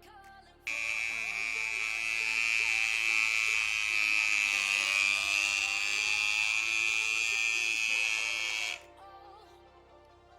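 Restored electric hair clipper switched on, buzzing steadily at a high pitch for about eight seconds, then switched off.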